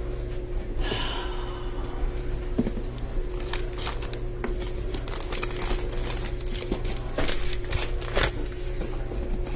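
Plastic food packets and cardboard seasoning boxes crinkling and rustling as they are moved around on a wooden pantry shelf, with small knocks and clicks as items are set down.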